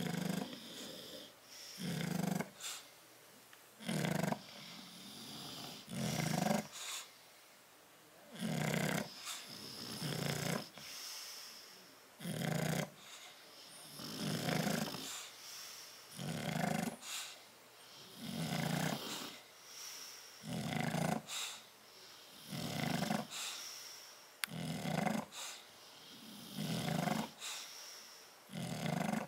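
Bulldog snoring in its sleep, a loud rasping snore about every two seconds in a steady rhythm.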